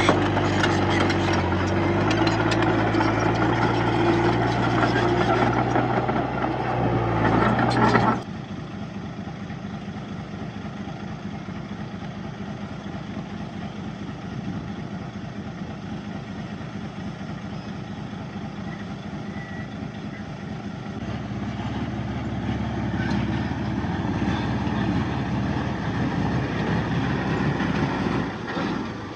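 Heavy diesel earthmoving machinery running, loud with a steady engine note, then dropping suddenly about eight seconds in to a quieter engine sound that grows louder again in the last third.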